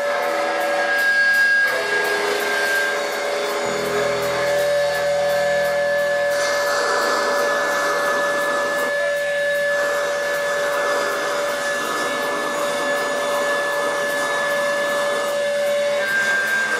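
Live rock band playing loud and dense: bass guitar and drums with steady cymbal strokes under a long held note that sustains through most of it.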